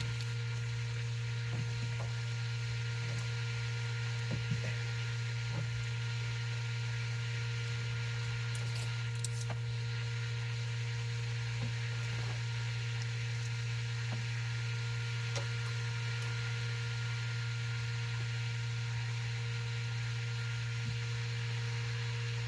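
A steady low hum, with a few faint clicks and taps now and then.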